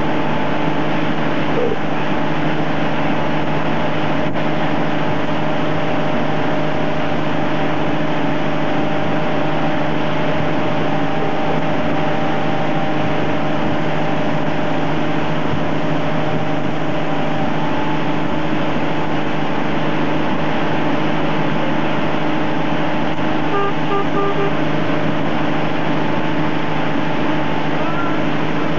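Motorboat engine running steadily at a constant towing speed: a level, droning hum with the rush of the boat's wake and wind over it.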